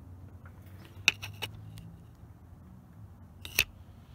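A few light clicks and taps about a second in and one sharper click near the end, over a low steady hum.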